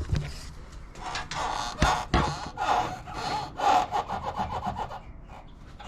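Torn upper front strut mount on a 2002 Honda Civic creaking and rubbing in repeated strokes as the suspension is worked, with two sharp knocks about two seconds in; the noise comes from the damaged mount.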